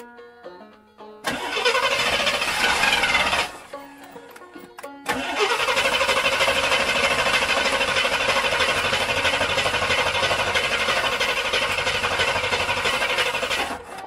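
Starter cranking the Rambler American's V8 twice, about two seconds and then about eight seconds, each burst starting with a short rising whine and cutting off suddenly; the engine does not catch.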